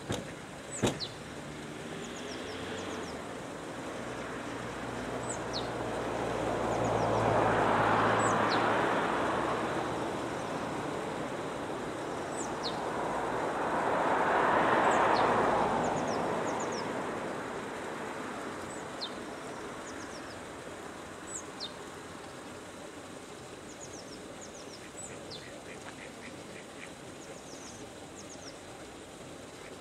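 Outdoor pond ambience: mallard ducks quacking and small birds chirping in short high notes throughout, while two swells of passing-vehicle noise rise and fall, one about a quarter of the way in and one about halfway. A single sharp click sounds right at the start.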